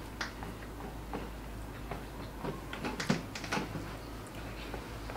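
Eating sounds: scattered soft smacks and clicks of chewing, with a cluster of them about halfway through, as palabok noodles are eaten with wooden chopsticks.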